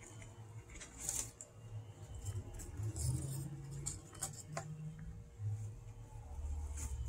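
Guinea pig chewing fresh-cut grass and rustling dry oat stalks in a cardboard box: scattered crisp crunches and rustles over a low rumble.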